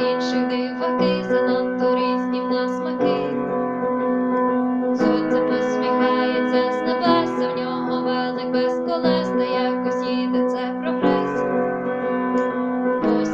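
Instrumental music: sustained keyboard chords that change about every two seconds, with quick higher notes played over them.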